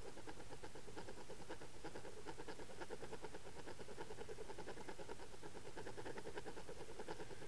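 Steady, rapid, even pulsing of a boat's outboard motor heard underwater through a camera towed on a trolling line.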